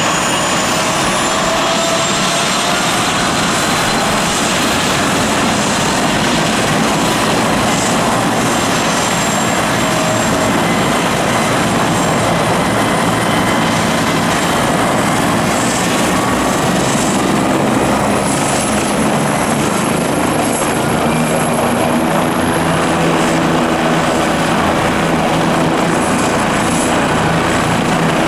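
Leonardo AW169 helicopter's twin turboshaft engines running with the rotor turning: a steady turbine whine over rotor noise. The whine rises slightly in pitch over the first few seconds, and the rhythmic rotor beat grows stronger in the second half.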